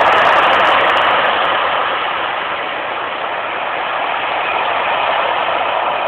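Ocean waves breaking and washing up the shore, a steady rushing that eases a little after the first second or two.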